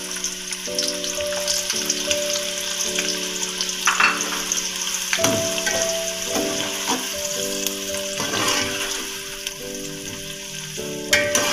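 Sliced onions frying in hot oil in an aluminium pot: a steady sizzle, with a metal ladle stirring and knocking against the pot a few times. Background music of held notes that change in steps plays underneath.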